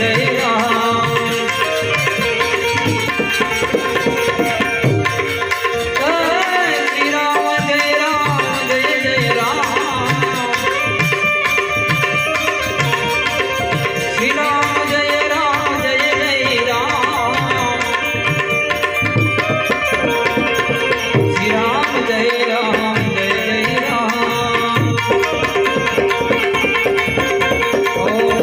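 Instrumental interlude of a devotional dhun: a harmonium playing the melody over a steady tabla rhythm.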